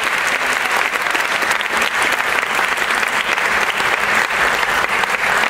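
Theatre audience applauding: dense, steady clapping.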